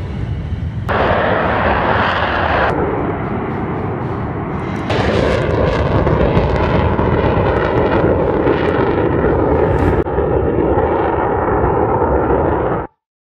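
Sukhoi Su-57 fighter's twin jet engines running at high power through takeoff and climb-out: a loud, steady rumble with a rough crackle. The sound shifts abruptly several times and cuts off suddenly near the end.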